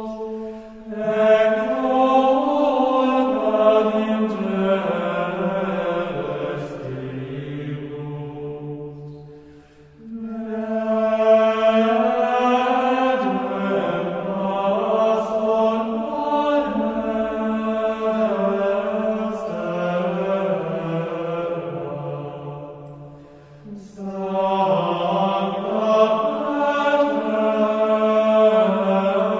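Background music of slow, chant-like vocals in long held notes, swelling in long phrases that fade out twice.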